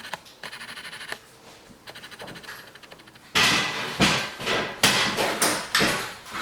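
Sheet-metal perimeter profiles for a suspended ceiling frame being handled, first a quick run of light ticks, then, about halfway through, loud metallic clatter and knocks, five or six in a row.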